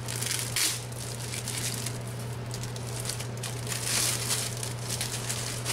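Thin plastic wrapping crinkling and rustling in the hands as a new cabin air filter is pulled out of its bag. The rustling comes in uneven handfuls and is loudest about four seconds in.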